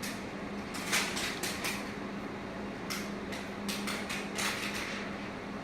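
Light clicks and taps on a laptop in two short runs, the first about a second in and the second about three seconds in, over a steady low hum.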